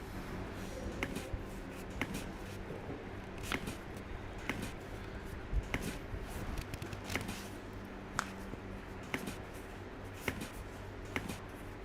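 Hands rubbing and handling a person's shoulders and back during chiropractic work, with light irregular clicks about once a second, over a low steady hum.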